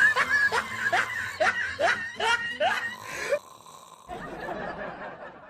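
A person laughing in a quick series of snickers, about eight short rising "heh" sounds at roughly three a second, stopping about three and a half seconds in. A fainter breathy noise follows.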